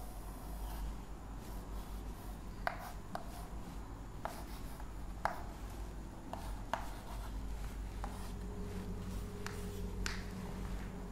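Chalk writing on a blackboard: about ten short, sharp taps and scratches at uneven intervals as letters are written, over a low steady hum.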